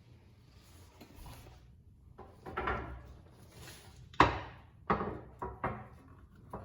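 Hand-handling of a new rear coil spring being fitted into its seat on a 2005–2009 Ford Mustang: a rustling scrape about two and a half seconds in, then a sharp knock, the loudest sound, a little past four seconds, followed by a few lighter knocks.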